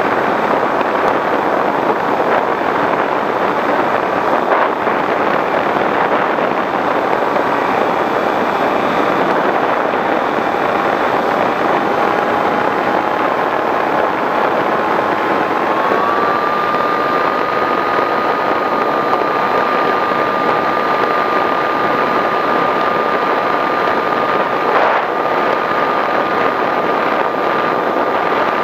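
Skywalker FPV plane's electric motor and propeller whining in flight, heard through heavy wind rush on the onboard camera's microphone. The whine steps up in pitch about halfway through, then holds steady.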